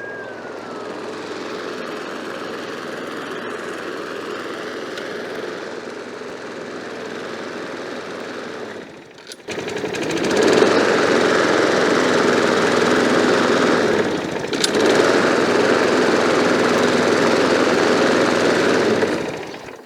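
Murray 22-inch mower's 5 hp Quantum single-cylinder four-stroke engine running steadily. It breaks off briefly about nine seconds in, then runs noticeably louder until just before the end.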